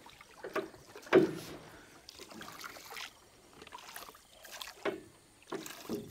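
Wooden oars of a small rowing boat being worked stroke after stroke: a knock at the oar pivots and a swish of the blades through the water about once a second, the loudest stroke about a second in.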